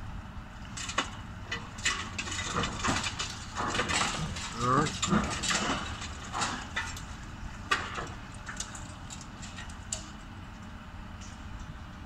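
Long-reach demolition excavator's jaws crushing and breaking the concrete and steel of a building's top floor: irregular cracking, crunching and creaking, loudest in the middle, thinning out after about eight seconds.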